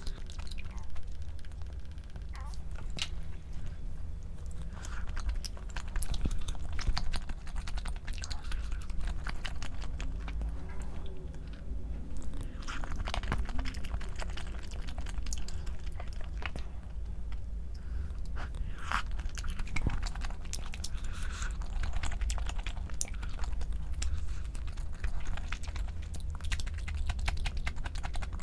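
Eating sounds: a person chewing and biting food, with many small clicks of utensils against dishes.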